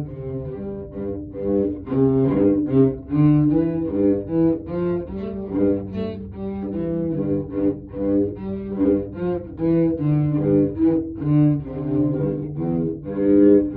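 A cello bowed in a steady run of separate notes, changing about two to three times a second, as a sound-point exercise working on where the bow meets the string.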